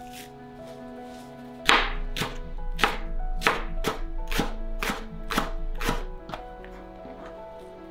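Knife chopping Japanese long green onion on a wooden cutting board: about ten even strokes, roughly two a second, starting about two seconds in and stopping about six seconds in. Soft background music plays under it.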